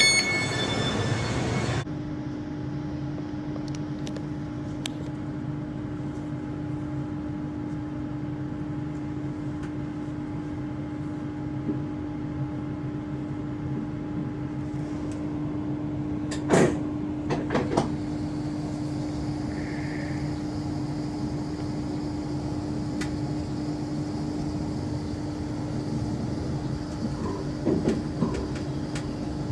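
Inside a moving passenger train carriage: a steady running rumble with a constant hum, and a short cluster of knocks a little past halfway. A snatch of music cuts off about two seconds in.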